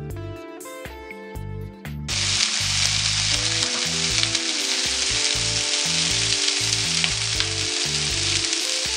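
Background music alone at first; about two seconds in, a loud frying sizzle cuts in as boiled, drained potato cubes sauté in hot oil in a nonstick skillet, with the music carrying on underneath.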